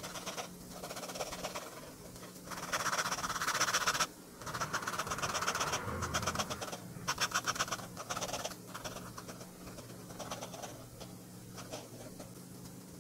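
A fountain pen's ultra-flex nib scratching across sketchbook paper in quick back-and-forth hatching strokes. The strokes come in runs of a second or two, loudest in the middle and lighter toward the end.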